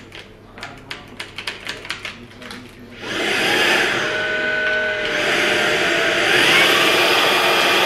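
Cordless stick vacuum cleaner: a series of clicks as it is handled and its parts pressed into place, then about three seconds in the motor starts and runs steadily with a whine that rises in pitch near the end. The vacuum had refused to run after sitting uncharged for over a year, and here it starts.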